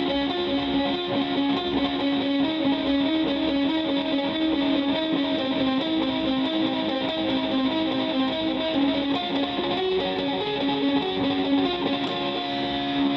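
Electric guitar played through a home-built delay pedal set for a rhythmic delay, the repeats of each note ringing on and overlapping behind the playing. The pedal is modified to give dark, filtered repeats.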